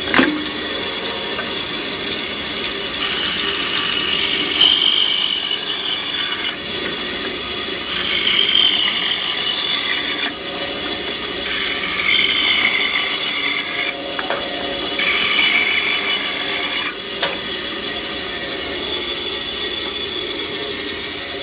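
Delta band saw running steadily, its blade cutting through wood four times, each cut a few seconds long and louder, with a higher whine, than the saw running free between cuts.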